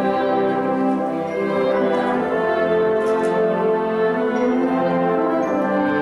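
Concert wind band playing, brass and woodwinds together in held chords that shift every second or so.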